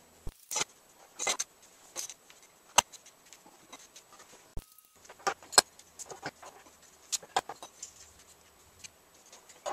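Stainless steel frame pipes clinking and knocking against each other and being pushed into plastic corner connectors by hand: a string of irregular sharp clicks and taps.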